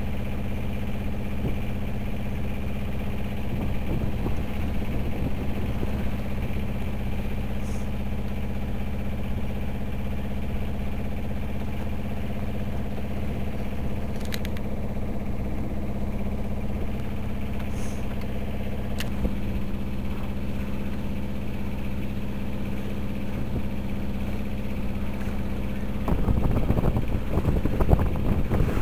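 A 26 ft sailing yacht's engine running steadily, a low even drone, as the boat motors along under power. About three seconds before the end the sound changes to wind buffeting the microphone.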